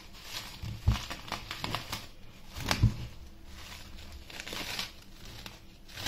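Plastic cling film crinkling and rustling as it is handled, with two dull thumps, about a second in and near the middle.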